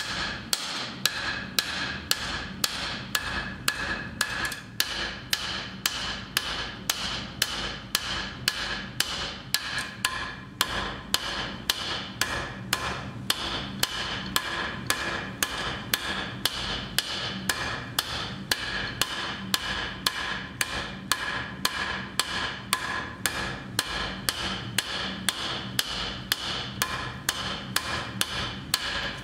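Blacksmith's hammer striking iron on an anvil in a steady rhythm of about two blows a second, the metal ringing between blows.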